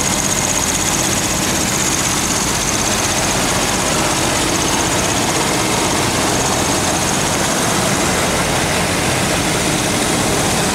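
1966 Ford Thunderbird's 428 cubic-inch V8 idling steadily, with a faint steady high whine over the engine sound.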